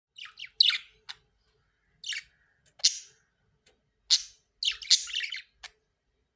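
Parrots calling: a series of short, harsh squawks, some in quick runs of two or three, with pauses between them.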